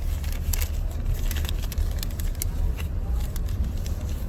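Steady low rumble of a car, with scattered crackles and clicks over it.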